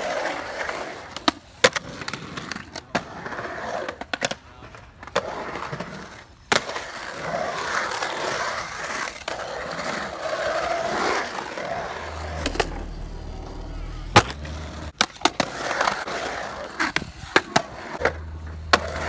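Skateboard wheels rolling over a concrete bowl, the rumble swelling and fading as the rider carves up and down the walls. Many sharp clacks of the board and trucks striking the concrete and coping break in throughout, several close together near the end.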